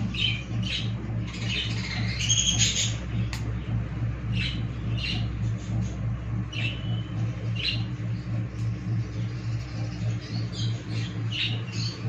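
Parrots giving repeated short, high squawks and chirps, bunched around two to three seconds in and again near the end, over a steady low hum.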